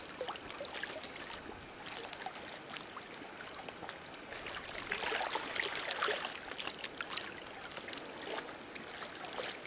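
Small waves lapping against stones at the lake's edge: a steady wash of water with many little splashes and clicks, a little louder about halfway through.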